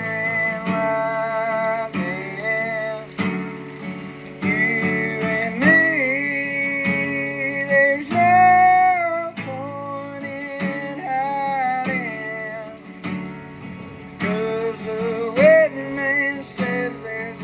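A man singing a slow song to a strummed acoustic guitar, his held notes bending and sliding over the regular strums.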